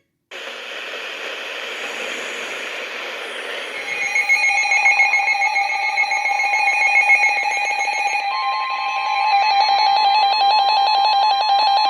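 Weather alert radios going off together: radio hiss, then overlapping electronic alert beeps from about four seconds in, joined about eight seconds in by the steady 1050 Hz NOAA Weather Radio warning tone that announces a new warning.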